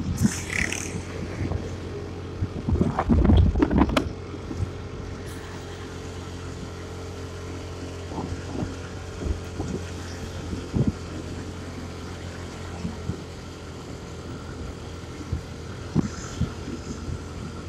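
Motorcycle engine running steadily at cruising speed, with wind buffeting the microphone. There are louder gusts around three to four seconds in and short thumps scattered throughout.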